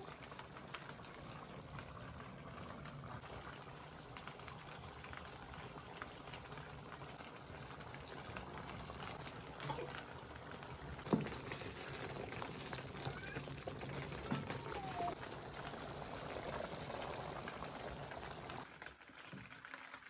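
Thick chicken curry simmering in a black wok over an ember-fired stove: a steady soft bubbling and spluttering, with a sharp click about eleven seconds in.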